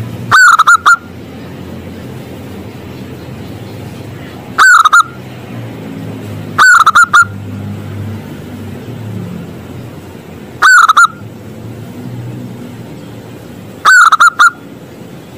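Zebra dove (perkutut) cooing: five short phrases of a few quick notes each, each under a second long and a few seconds apart, very loud.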